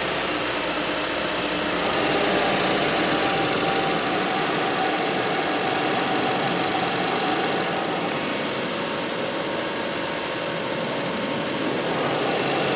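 2002 Mazda Protege 5's four-cylinder engine idling steadily just after a cold start, with no belt or alternator-bearing squeak to be heard.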